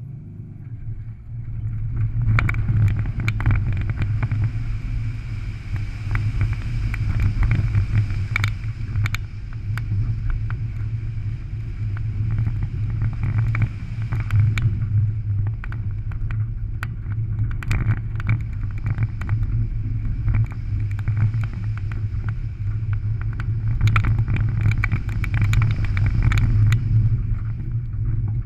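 Rallycross car engine pulling hard off the start and running under load on a loose dirt course, a steady low drone. Gravel and dirt clatter against the car in sharp ticks, thickest early on and again near the end.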